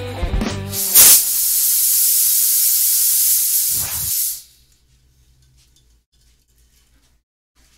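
A loud, steady hiss of smoke blasting out, opening with a sharp burst about a second in and cutting off suddenly after about three seconds, followed by faint room tone.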